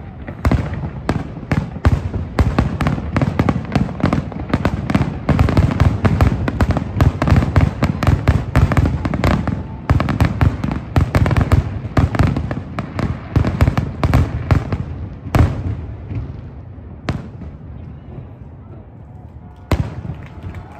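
Aerial fireworks shells bursting in a rapid, dense barrage of bangs. The barrage thins out over the last few seconds to a handful of single bangs with quieter gaps between them.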